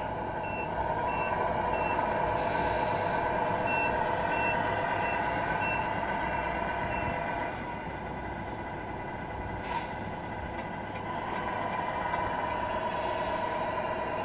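Sound unit of a Tamiya Scania R470 RC truck playing a simulated diesel engine running and revving, with a reversing beeper pulsing about three times a second through the first half. Short air-brake hisses come about 2.5 s in, near 10 s and near the end, and the engine drops to a quieter idle about halfway through.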